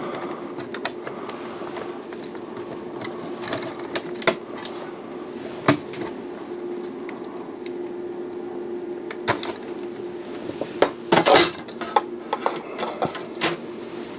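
Scattered clicks and knocks of plastic and circuit-board handling as the CD drive mechanisms and the main board are lifted and shifted by hand. The loudest run of knocks comes a little after eleven seconds in, over a steady low hum.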